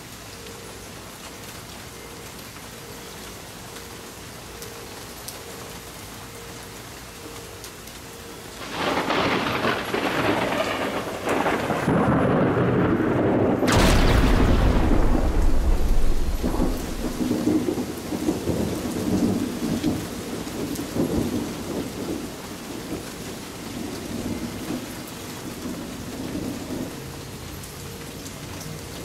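Steady rain falling on a patio and plants. About nine seconds in, thunder breaks loudly. A second, sharper thunderclap comes about fourteen seconds in with a deep rumble, and the thunder rolls and slowly fades while the rain keeps falling.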